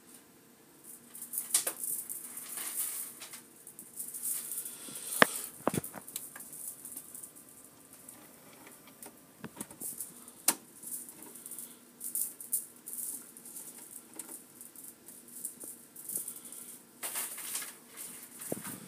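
Irregular rustling and scratching, with scattered sharp clicks and no steady rhythm.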